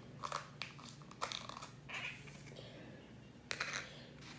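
Thin plastic clicking and crackling as a small lidded sauce cup and a clear plastic takeaway box are handled, with scattered sharp clicks and a quick cluster of them about three and a half seconds in.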